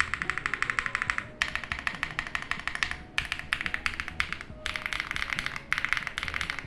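Fast typing on a mechanical keyboard fitted with Akko x HMX Stellar switches, which have PA12 nylon housings. The keystrokes make deep clacks as each key bottoms out. The typing comes in quick runs broken by short pauses every second or two.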